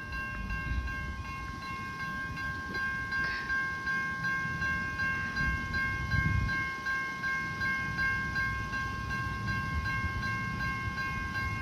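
Siemens electronic level-crossing bell ringing steadily, a constant high tone, over the low rumble of an approaching diesel train.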